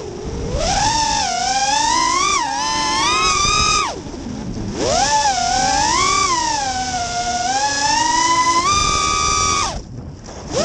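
Brushless motors of a Realacc X210 FPV quadcopter (Racerstar Tornado T2 2300kv motors, three-blade 5040 props) whining, the pitch swooping up and down with the throttle. The whine drops away about four seconds in as the throttle is cut and spools back up a second later, then drops away again near the end.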